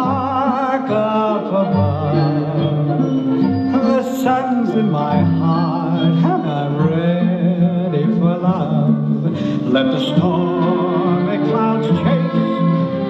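A recorded song playing loudly: a singer's voice with vibrato over instrumental backing.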